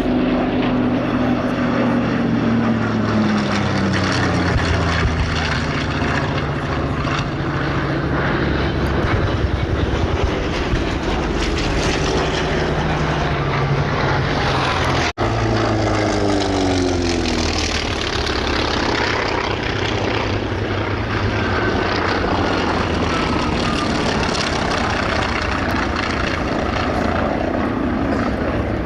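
Piston-engined warbird propeller planes flying past, loud engine and propeller noise dropping in pitch as each one goes by. The sound cuts out for an instant about halfway through, then another plane passes with its pitch falling again.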